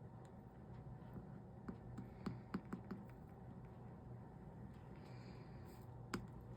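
Light clicks and taps of soldering work on copper-foiled stained glass: a cluster of small clicks about two to three seconds in and one sharper click near the end, over a faint steady low hum.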